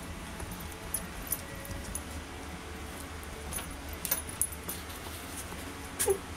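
Three-week-old Pembroke Welsh corgi puppies scuffling on blankets: soft rustling with scattered small clicks and scratches, and a brief squeak about six seconds in.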